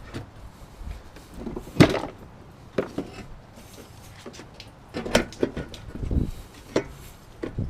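Irregular knocks and clunks, about six spread over several seconds, the loudest about two seconds in.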